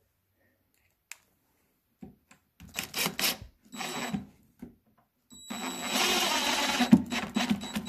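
Power drill driving a wood screw through a caster's steel mounting plate into pre-drilled wood: a steady motor whirr with a thin whine for about two and a half seconds, with a sharp knock partway through. Before it comes a few seconds of clattering handling as the screw is picked up and set.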